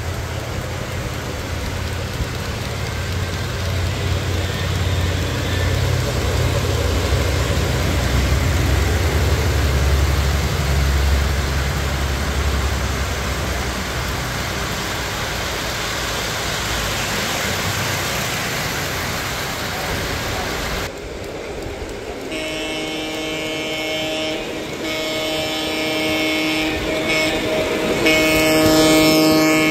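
Three-rail model freight train rolling close by, its wheels making a steady low rumble on the track. About two-thirds of the way in the scene changes and a model Santa Fe diesel's electronic horn sounds in several long, multi-tone blasts, loudest as the locomotive passes.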